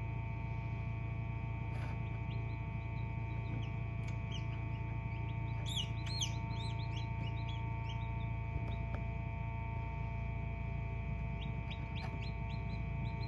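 Newly hatched chicks peeping in short high chirps, a flurry from a couple of seconds in and another near the end, over the steady hum of an egg incubator.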